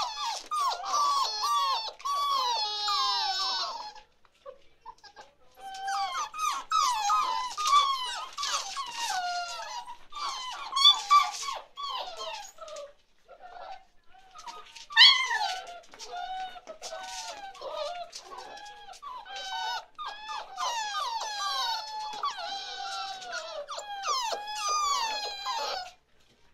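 Several chocolate Labrador puppies whining and squealing at once, overlapping high-pitched cries that waver up and down. They break off briefly about four and thirteen seconds in, with one sharp, louder yelp about fifteen seconds in.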